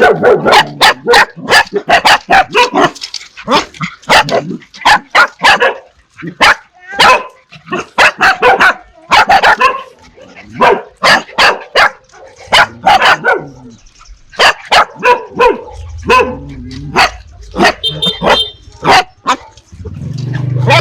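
Dogs barking repeatedly in rapid volleys of sharp barks, with short pauses between the volleys.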